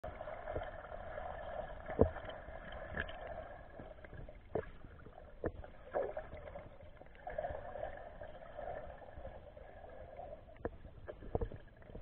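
Muffled underwater sound through a camera's waterproof housing: a steady dull hiss with scattered irregular clicks and knocks, the loudest about two seconds in.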